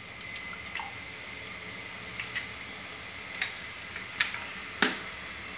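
Eggs being cracked by hand over a plate of milk: a handful of short, sharp taps and clicks of eggshell against the plate, the loudest near the end. A faint steady hiss runs underneath.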